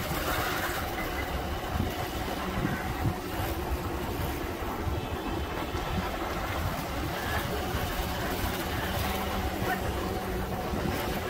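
Motorbike engine running steadily while riding along a street, under a constant rumble of wind on the microphone.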